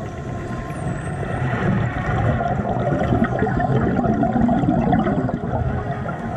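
Underwater rush and crackle of scuba divers' exhaled regulator bubbles, heard through the camera's underwater housing, swelling louder in the middle. A faint high whistle glides downward about a second in.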